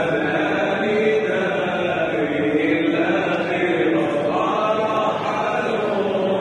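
A muezzin's amplified male voice chanting a slow, melodic Ramadan farewell chant through a microphone, held notes running on without a break.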